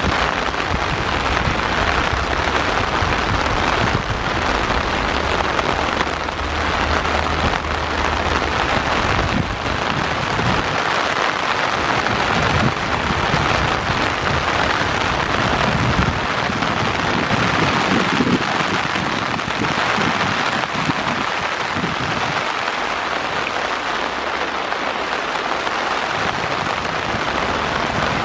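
Heavy rain falling steadily. The low rumble of a departing container freight train underneath fades out about ten seconds in.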